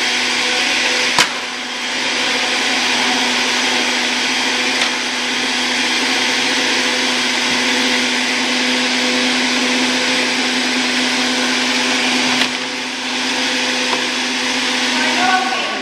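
Countertop jug blender running steadily at speed, blending soaked almonds and water into almond milk, with a sharp click about a second in. Near the end the motor is switched off and winds down to a stop.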